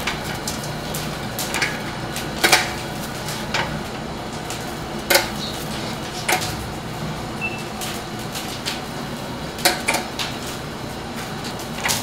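Kitchen clatter: metal utensils and dishes clinking and knocking at irregular intervals over a steady background noise.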